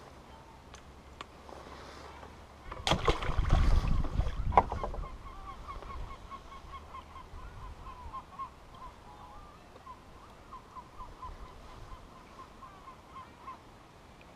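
A burst of close rustling and knocking about three seconds in, the loudest sound, as gear is handled near the microphone. Then a long run of short, repeated honking calls, several a second, from geese.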